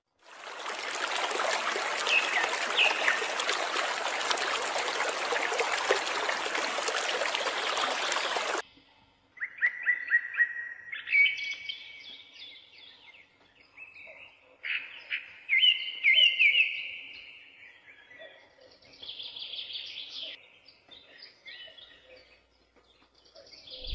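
Water pouring and splashing steadily from the spouts of a miniature water pump into a small pool, cutting off suddenly about eight seconds in. Then birds chirping in short phrases of song.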